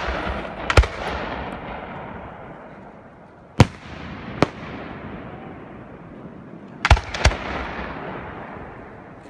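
Aerial firework shells bursting overhead: about five sharp bangs, each followed by a rush of noise that fades over a couple of seconds.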